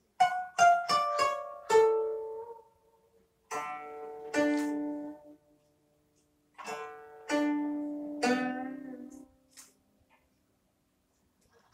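Solo koto (Japanese zither) plucked in slow, sparse phrases: a run of about five quick notes at the start, then a few notes, then a longer phrase, each note ringing out and decaying, with pauses of silence between the phrases.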